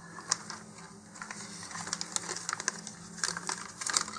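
Thin plastic parts bag crinkling while small motor-mount parts are shaken out of it, with light clicks and taps of the tube and rings knocking together; the rustling and clicking grow busier after the first second or so.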